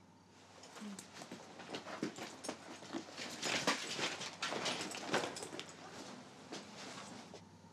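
Rummaging through a pile of clothes and bags: irregular rustling with small knocks and clicks, busiest in the middle.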